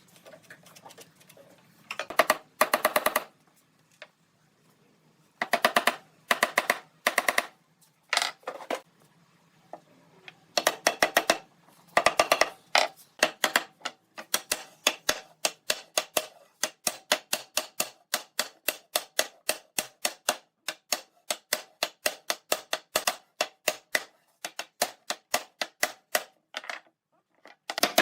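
Rapid runs of sharp taps, short bursts with pauses at first, then nearly continuous strings of taps from about halfway on.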